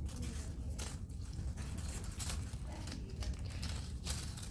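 Light rustling and crinkling from hands handling crinkly material, a few brief rustles over a low steady rumble.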